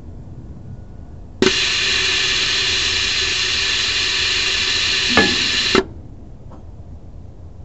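Compressed air hissing out of the motorhome's air suspension for about four seconds, starting and cutting off abruptly, with a faint steady tone under it and a click just before it stops: air being let out to lower the suspension.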